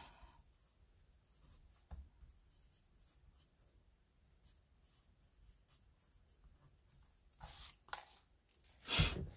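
Pencil writing Japanese characters on paper: faint, short scratching strokes. Near the end come two louder swishes, the second the loudest.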